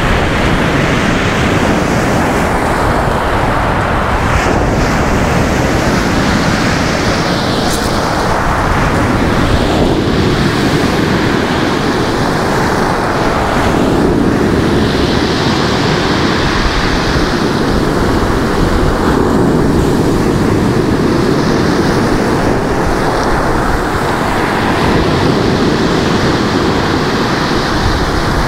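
Stormy Black Sea surf breaking and washing up over a pebble beach, the rush of water rising and falling with each wave.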